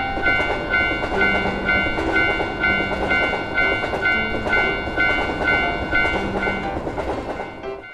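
Japanese railroad crossing alarm ringing its "kan-kan" ding about twice a second while a train rushes past with a steady rumble. The train noise dies away just before the end.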